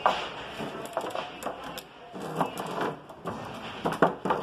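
Wooden lumber boards knocking and clattering against each other as they are tipped and shuffled in a rack: a few irregular sharp wooden knocks, several close together near the end.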